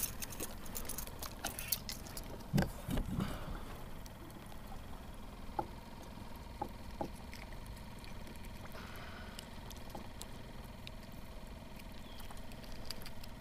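Water lapping around a kayak, with a few knocks in the first three seconds or so and scattered small clicks after that, as a small redfish is lifted aboard and unhooked by hand.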